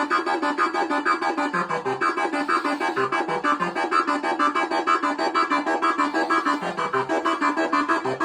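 Behringer MS-1 monophonic analog synthesizer playing a pattern from its built-in step sequencer: a fast, even run of short notes, about six a second, with the bass note shifting every so often as the tone is adjusted.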